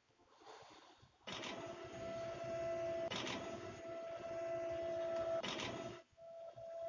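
A small electric motor and gears whirring with a steady whine, with a couple of sharp clicks along the way; it cuts out briefly near the end and starts again.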